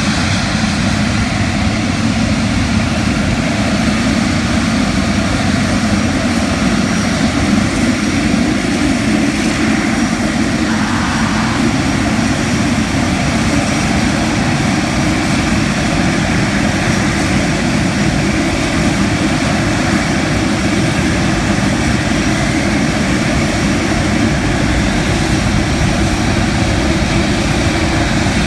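Boeing 777 jet engines at taxi power as the airliner rolls slowly past close by: a loud, steady engine noise with a faint steady whine over it.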